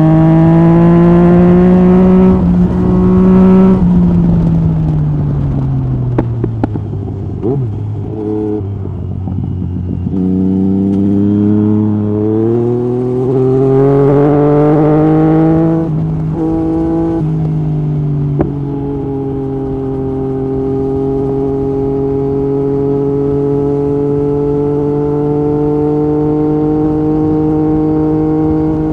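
Yamaha MT-09 SP's three-cylinder engine through an Akrapovic Racing Line exhaust with its dB killer out, heard from on the bike. It revs up, falls away as the bike slows with a few sharp cracks from the exhaust, then pulls up again through two quick upshifts, where the pitch steps down, and settles into a steady cruise.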